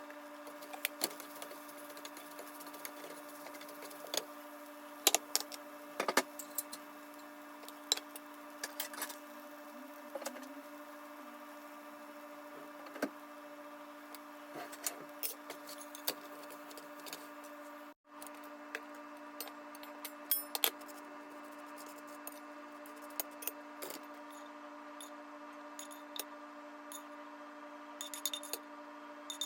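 Scattered clinks and taps of kitchen utensils during cooking, over a steady hum.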